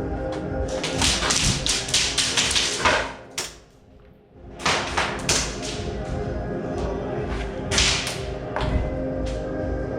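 Airsoft guns firing in rapid bursts of sharp cracks. The longest run comes in the first few seconds, then a brief lull, then a few shorter bursts.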